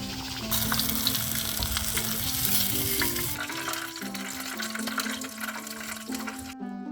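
Food frying in hot oil, a dense crackling sizzle that swells about half a second in, eases after about three seconds and cuts off abruptly near the end. A simple background melody plays under it.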